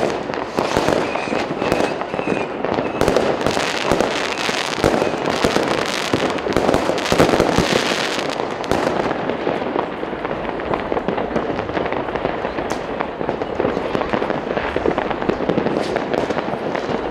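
Fireworks and firecrackers going off continuously, a dense mass of overlapping bangs and crackles. It thins a little in the second half.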